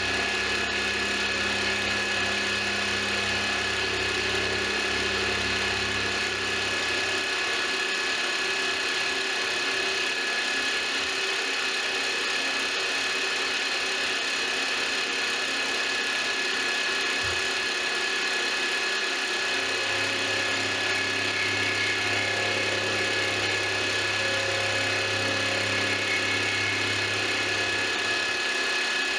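Manual milling machine running with its end mill taking a cut of about 50 thousandths per pass off the end of an aluminum extrusion: a steady whine with a low hum that drops out for a stretch in the middle and comes back.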